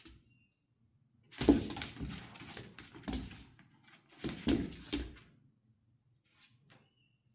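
Pets scuffling and knocking about, in two bursts of thumps and rustling. The second burst starts about a second after the first one ends.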